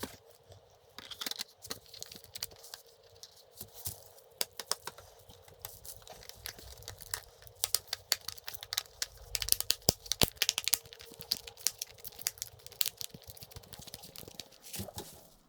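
Hands handling a tablet and its plastic parts during reassembly after a screen replacement: an irregular run of small clicks, taps and crackles, over a faint steady hum.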